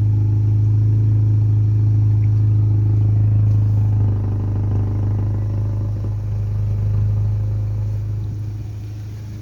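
Seat León FR 1.5 TSI four-cylinder turbo petrol engine idling through a modified exhaust with a straight-through, gutted silencer, a steady low drone. The idle drops a little after about four seconds and again near the end as the cold engine's fast idle settles down.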